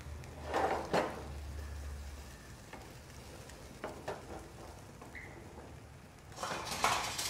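Egg and split bread rolls frying in a nonstick pan with a steady sizzle. A wooden spatula scrapes and pushes in the pan about half a second in and again near the end.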